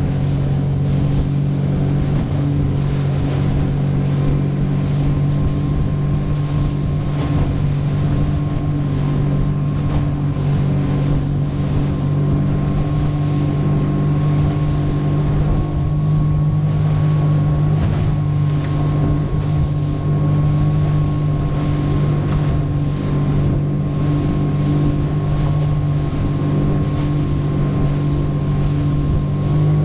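50 HP Suzuki outboard motor running at a steady cruising speed, pushing a small aluminium boat across choppy water, with rushing water and wind noise mixed in.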